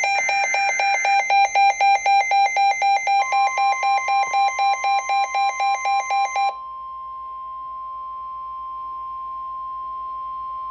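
Weather-radio alert tones. An electronic alarm beeps rapidly, about four beeps a second, until it stops about six and a half seconds in. From about three seconds in, a steady single-pitch NOAA Weather Radio 1050 Hz warning alarm tone joins it and holds on alone after the beeping stops, announcing a new severe thunderstorm warning.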